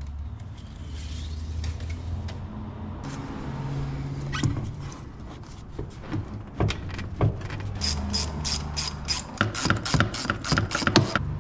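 Ratchet wrench clicking rapidly, about five or six clicks a second, during the last three seconds as a 7/16-inch fitting is worked. Before that come scattered handling clicks and knocks.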